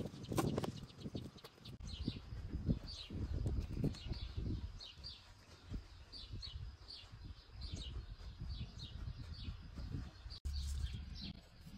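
A small bird chirping over and over in short, falling notes, over a low, uneven rumble. A couple of sharp clicks come near the start.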